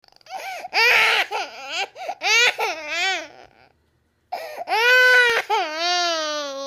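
A baby crying: several short wails, then after a brief pause one long wail that drops in pitch at its end.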